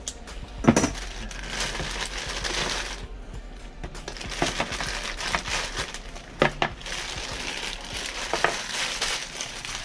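Clear plastic packaging bag crinkling as figure parts are pulled out of it by hand, with a few sharp knocks, the loudest about a second in.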